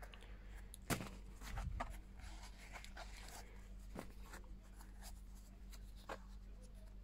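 Handling noises of a leather sneaker and its cardboard shoe box: a sharp knock about a second in, then scuffing and rustling, with a light tap near the middle and another near the end.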